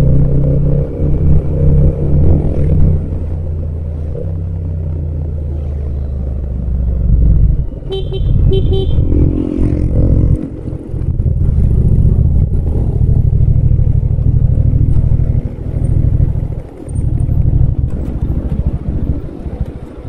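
Yamaha MT-07's parallel-twin engine running on the move, its note rising and falling with the throttle and dropping out briefly a few times, heard close with no wind noise. A vehicle horn gives two short toots about eight seconds in.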